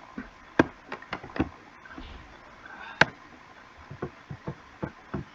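A quick, uneven series of sharp clicks and taps, about a dozen in five seconds, with one louder click about three seconds in.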